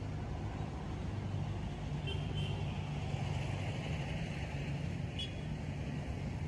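Road traffic: a steady low hum of vehicle engines and tyres, with brief high squeaks about two and five seconds in.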